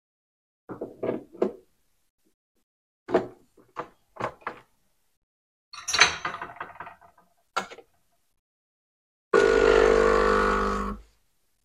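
Metal portafilter clacking as it is handled and locked into a De'Longhi espresso machine, a small cup set down with a clink, then the machine's pump starts about nine seconds in with a steady loud hum for about two seconds and cuts off.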